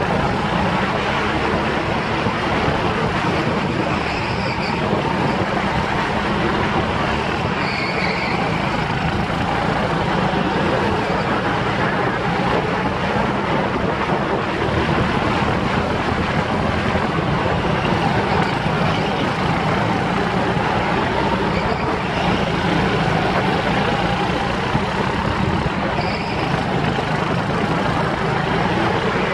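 Go-kart engine heard from on board the moving kart, running steadily at speed as a loud, even, noisy drone.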